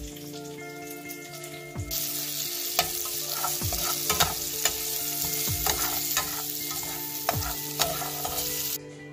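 Sliced onions sizzling in a hot skillet, starting about two seconds in and stopping just before the end. A metal spatula scrapes and clicks against the pan repeatedly as the onions are stirred.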